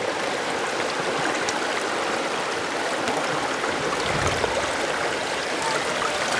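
Shallow stream running over rocks: a steady rush of flowing water.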